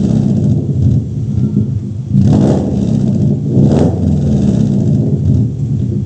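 Car exhaust through a replica Kakimoto Regu.06&R aftermarket muffler: a deep, steady rumble with two short throttle blips, about two and a half and four seconds in.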